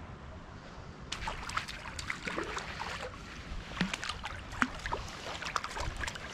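Shallow river water splashing and gurgling around a wader's legs, in an irregular run of short splashes and bubbly glugs that starts about a second in.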